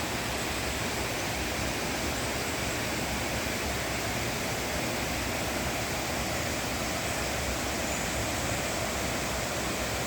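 Steady rush of flowing water, an even unbroken roar with no change in level.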